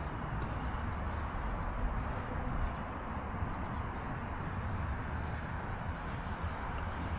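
Steady outdoor background noise, mostly a low rumble, with faint high chirps for a couple of seconds about a second and a half in.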